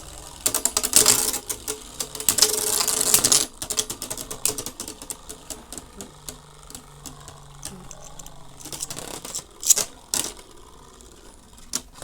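Beyblade spinning tops whirring and clattering against each other and the plastic stadium: loud, dense rattling for about the first three and a half seconds, then a quieter rattle with two sharp clashes near ten seconds.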